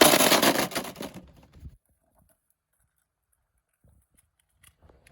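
3D-printed Beyblade tops whirring and clattering against each other in a plastic stadium, then cutting out about a second and a half in, followed by only a few faint ticks.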